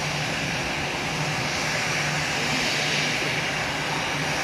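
Twin turbofan engines of an Airbus narrowbody jet running at taxi power as it rolls toward the listener: a steady jet rush with a low hum underneath, swelling slightly about halfway through.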